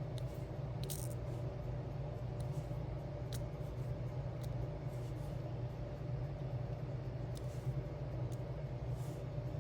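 Diamond-painting work: a few faint, light clicks and taps as small resin gems are picked up and set onto the sticker, over a steady low hum.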